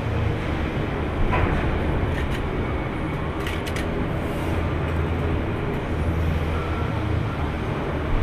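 Steady rumble of factory machinery with a low hum, and a few short knocks: one about a second in and a few more around three and a half seconds in.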